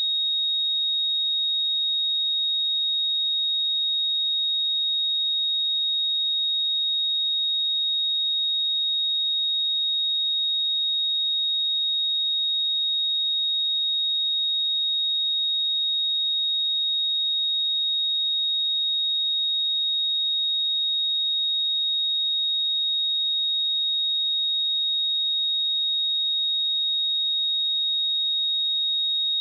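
A pure 3753 Hz sine wave test tone, one steady high-pitched note held at a constant level.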